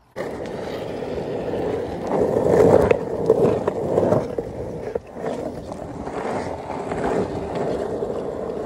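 Skateboard wheels rolling on a road surface: a steady rumble that swells and eases, with a few sharp clicks.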